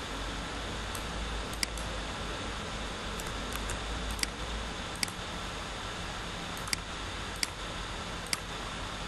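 Computer mouse clicking, about half a dozen single sharp clicks at irregular intervals, over a steady background hiss.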